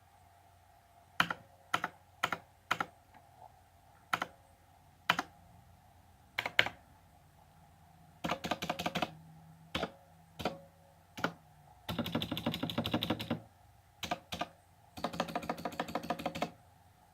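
Armaggeddon MKA-3C Psychfalcon mechanical keyboard with clicky Outemu Blue switches being typed on. First come scattered single keystrokes with pauses between them, then quick runs of clicks, the longest lasting about a second and a half each, near the middle and near the end.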